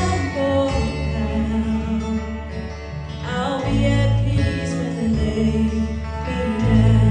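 Two women singing a gospel song into microphones, accompanied by acoustic guitar.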